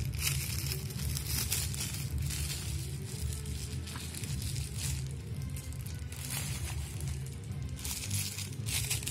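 Clear plastic wrapping crinkling in several bursts as small brass pooja items are unwrapped by hand, over background music.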